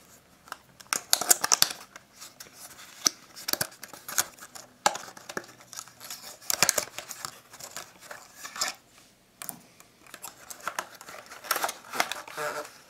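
A small cardboard retail box being opened and its packaging handled: irregular scraping, rustling and sharp little clicks, coming in short bursts.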